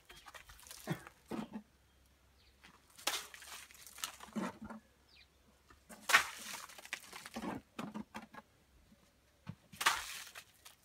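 Wet lime consolidation mortar thrown from a harling trowel onto a cob wall: a string of irregular wet splats, a second or a few seconds apart, the loudest about six and ten seconds in.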